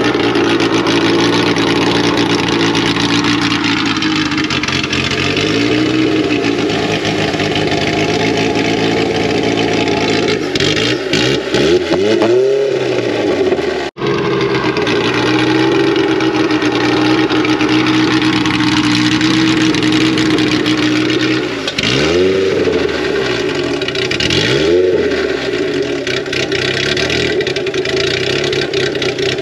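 Car engine running steadily, its revs climbing and falling back a few times, with a sudden break about halfway through.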